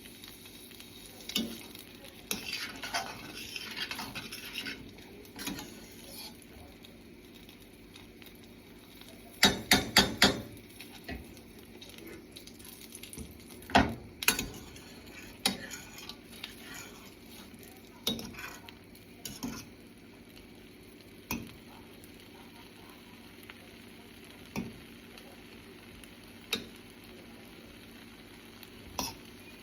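A utensil stirring food in a pan, knocking and scraping against it over a faint sizzle. A quick run of four sharp knocks comes about ten seconds in, and scattered single taps follow.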